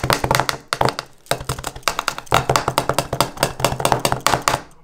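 Wire whisk beating thick mashed potatoes in a bowl, its wires clattering and tapping against the bowl in rapid strokes several times a second, stopping near the end.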